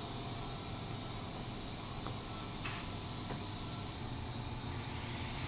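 Steady low background hiss of room tone, with a few faint small clicks about two to three seconds in.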